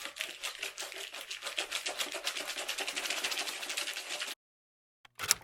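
A fast, even run of sharp clicks, about eight to ten a second, that stops abruptly about four seconds in and comes back as a short burst near the end.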